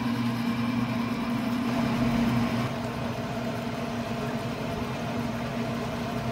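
Traeger pellet grill's fan running with a steady machine hum during the grill's startup, easing slightly after about two and a half seconds.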